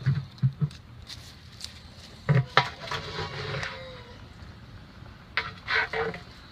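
Metal snake stick knocking and scraping against the inside of a plastic bucket: a few sharp clacks at the start, a loud pair about two seconds in, and another cluster near the end.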